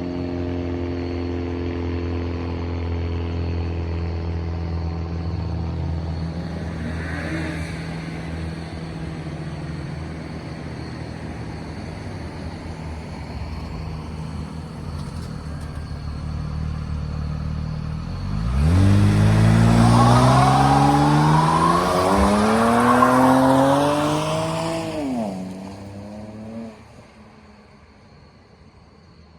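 BMW N54 twin-turbo inline-six with open dual-cone intakes running steadily, then about 18 seconds in pulling hard under boost for about seven seconds, its pitch climbing with a loud rushing hiss. It then cuts off sharply on lift-off and quietens.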